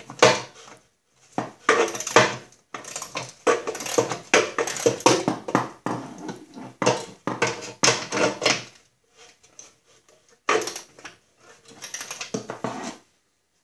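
Irregular metallic clinks and clicks of a hand tool tightening a nut on a Snapper walk-behind mower's drive-disc assembly, in short runs with brief pauses.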